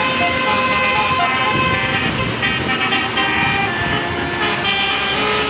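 Bus 'telolet' multi-tone horn of the basuri type playing a tune: a string of held horn notes, several sounding together, stepping from one pitch to the next.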